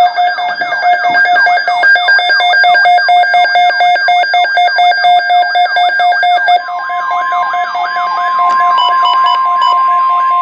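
Weather radio alert alarm: pulsing electronic beeps over a fast up-and-down warble. About six and a half seconds in, a steady single-pitched tone joins it, the 1050 Hz NOAA Weather Radio warning tone that comes before an alert.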